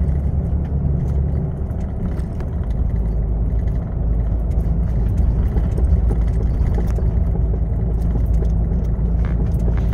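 Heavy truck heard from inside the cab while driving: a steady low engine and road rumble. The low part of the sound shifts and grows slightly stronger about four seconds in.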